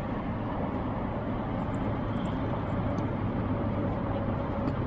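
Steady outdoor background rumble, with faint high ticks through the first few seconds and a faint steady hum joining about three seconds in.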